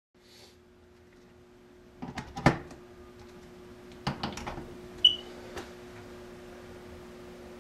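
Sharp plastic clicks and knocks of alarm equipment being handled, in two short clusters about two seconds apart, then a single short electronic beep about five seconds in, all over a steady low hum.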